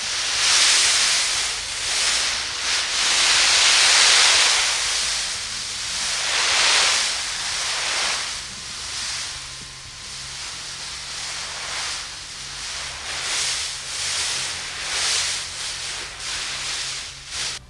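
Water spraying from a garden hose onto black plastic mulch and seedlings, a steady rushing noise that grows louder and softer several times, loudest a few seconds in.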